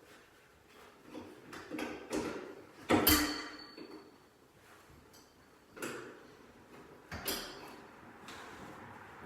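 Curtain pole and its brackets being handled and fitted: a series of knocks, clatters and scrapes, the loudest about three seconds in with a brief high ringing after it, and two more knocks later on.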